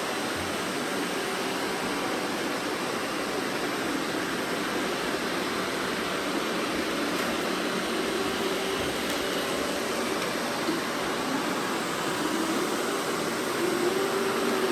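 Robot vacuum cleaners running: a steady rushing noise of suction fans and brushes, with a faint wavering motor hum coming up in the second half.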